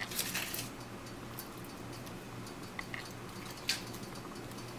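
Foil wrapper of a Maggi stock cube crinkling briefly as the cube is crumbled into a bowl, followed by a couple of faint ticks over a low steady hum.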